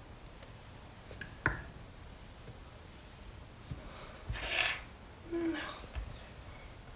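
Quiet kitchen handling noises while flour is weighed out: a sharp click about a second and a half in, a short rustle past the middle, and a soft knock near the end.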